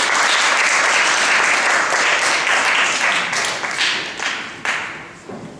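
Audience applauding in a hall. The dense clapping thins to a few scattered claps from about three seconds in and dies away near the end.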